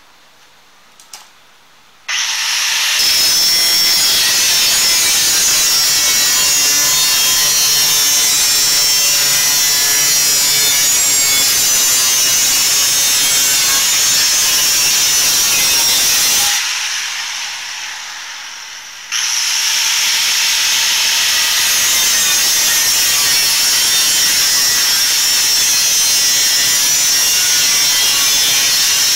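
Angle grinder cutting and grinding steel at the wheel hub, trimming the brake dust shield to clear a big brake kit's larger disc. It starts about two seconds in, spins down with a falling whine around two-thirds of the way through, then starts again and grinds on.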